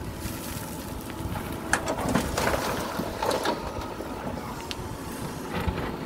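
Mahindra backhoe loader's diesel engine running under load as the backhoe bucket empties soil and gravel into a tipper truck's bed and swings back to the trench, with knocks and rattling around two to three seconds in.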